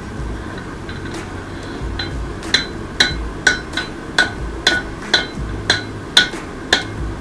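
Hammer striking rebar on an anvil while forging tongs: a few light taps, then about ten sharp ringing blows at roughly two a second.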